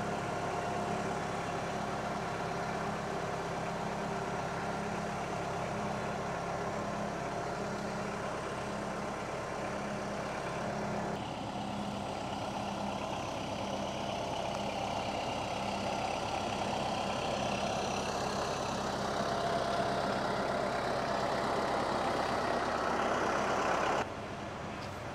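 Tractor engine running steadily while its forks lift a heavy sawmill head. The sound shifts about halfway through and drops suddenly near the end.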